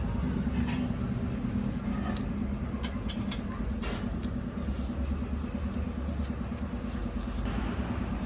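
Steady low mechanical rumble, like an engine running in the workshop, with a few light metallic clicks and taps of brake caliper parts being handled between about two and four seconds in.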